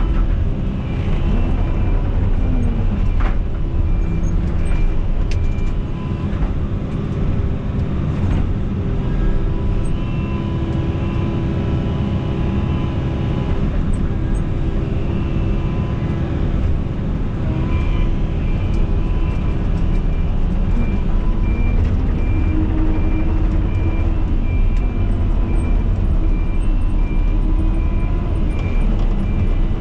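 Excavator's diesel engine running steadily while working, its pitch rising and falling a little under hydraulic load, with occasional knocks, heard from inside the cab.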